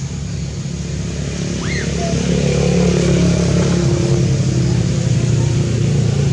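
A motor vehicle's engine running off-camera, with a steady low hum that grows louder over the first two seconds and then holds.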